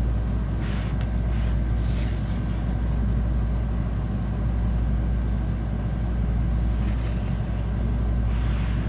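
A steady low hum throughout, with a few faint, short scratchy strokes of a felt-tip marker being drawn around the edge of a vinyl floor tile.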